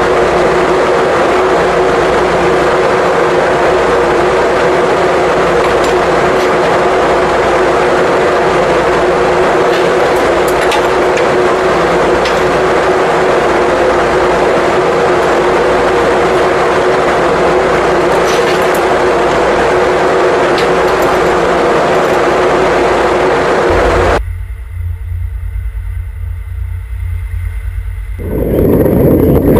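Steady, loud drone of shipboard machinery with a constant hum on the deck of a survey ship. About 24 s in it changes abruptly to a low, muffled hum. Near the end, a loud rush of engine and water noise rises as the fast rescue boat runs alongside the ship's hull.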